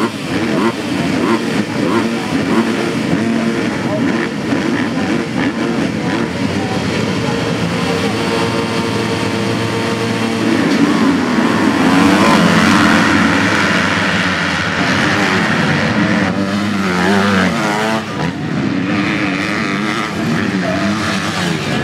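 A full gate of MX2 motocross bikes, a mix of two-stroke and four-stroke engines, revving together while held at the start line. A little past halfway the pack launches at full throttle and the engine noise rises to its loudest, then thins out as single bikes ride past.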